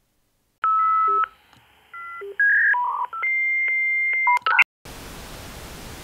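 Outro sound effect: a run of electronic telephone-style beeps at several pitches, ending in a long steady tone. After a brief gap about five seconds in, it cuts to a steady hiss of television static.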